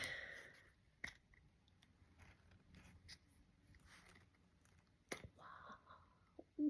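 Quiet handling of cosmetic packaging: faint rustling with two sharp clicks, one about a second in and one about five seconds in.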